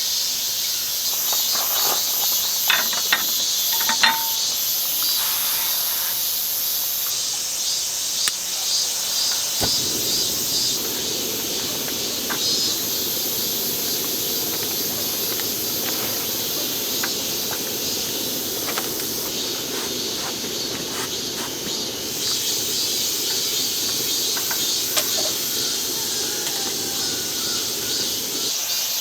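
Crickets and other insects chirping steadily, with a few light clicks in the first few seconds. From about ten seconds in, a low steady hiss joins and stops shortly before the end.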